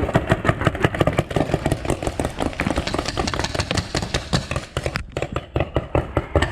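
Several magazine-fed paintball markers firing rapidly in overlapping volleys, laying down cover fire. The shots run continuously, with a brief lull about five seconds in.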